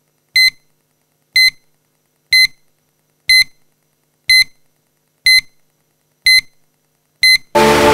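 Eight short electronic beeps, one a second, each a single high tone, counting down the last seconds before the session starts. Loud music cuts in right after the last beep.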